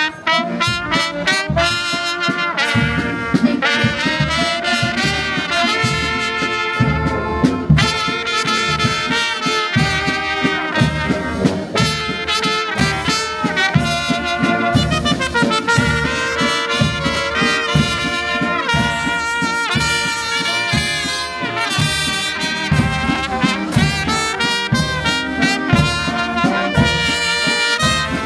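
Brass band music: trumpets and trombones playing a tune over a steady beat.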